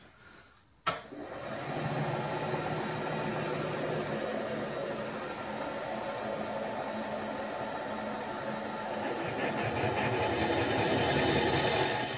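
Machine spindle starting about a second in, then a tapping-size twist drill cutting into a stainless steel boiler wrapper: a steady machine sound that grows louder, with a high squeal building from the drill in the stainless near the end.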